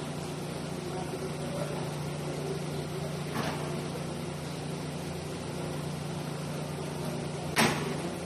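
Knocks from steel pallet racking being assembled: a sharp knock near the end and a fainter one about midway, over a steady low hum.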